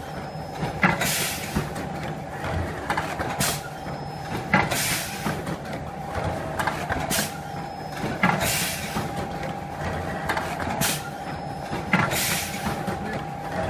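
Battery shrink-sleeve wrapping machine running, its pneumatic cylinders cycling with sharp clacks and short bursts of compressed-air hiss about once a second, over a steady machine hum.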